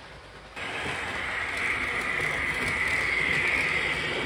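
Märklin model train running close by on its metal track: a steady wheel rumble with a high whine over it, coming in suddenly about half a second in.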